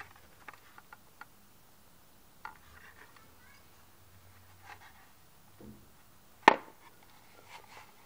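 Plastic casing of a Sessy AVSU-PZ fire alarm sounder handled and turned over in the hands: light clicks and rubs, with one sharp knock about six and a half seconds in.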